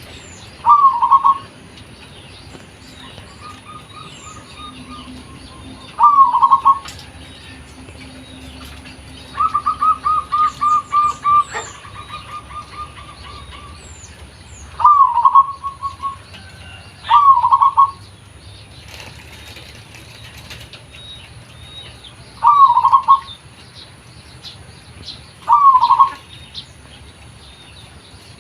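Zebra dove (perkutut) cooing: short phrases every few seconds, with one longer run of quick, evenly spaced notes about ten seconds in. Small birds chirp faintly in the background.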